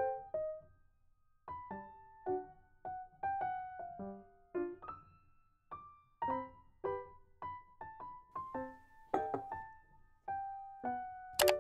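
Background piano music: single notes and small chords struck and left to fade, at an unhurried pace. A sharp click sounds near the end.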